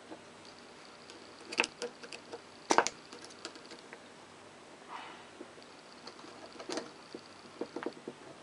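Sharp metal clicks and taps of a screwdriver and small steel parts as a slightly bent part is worked into a Lister D engine's governor assembly. A cluster of clicks comes about one and a half to three seconds in, and more come near the end.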